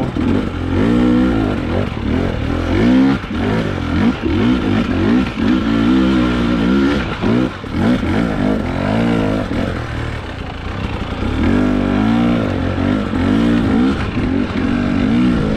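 Husqvarna enduro dirt bike engine pulling in first gear under light throttle, its pitch rising and falling again and again as the throttle is eased on and off to pick through rocks and roots.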